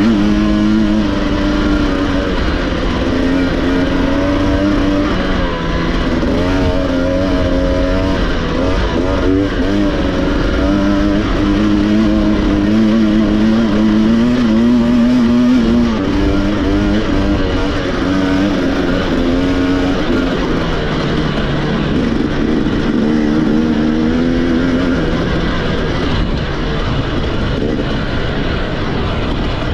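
Racing motorcycle engine under hard throttle, its pitch climbing and dropping repeatedly as the bike speeds up and slows down.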